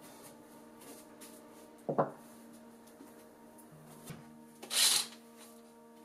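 Wooden masu box of raw rice handled on a wooden table: a short knock about two seconds in, then a brief scraping rub about a second before the end. Soft background music of held tones plays underneath.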